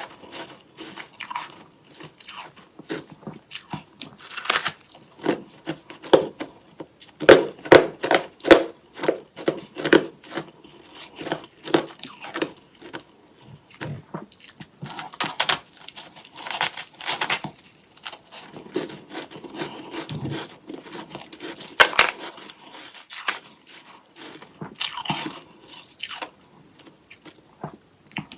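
Close-up crunching and chewing of powdery freezer frost scraped from a humidifier-fed freezer: bites and chews come in quick runs of sharp crunches, with short pauses between them.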